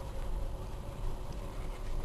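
Dacia Logan car driving down a rough unpaved mountain road, with a steady low rumble from the car and its tyres.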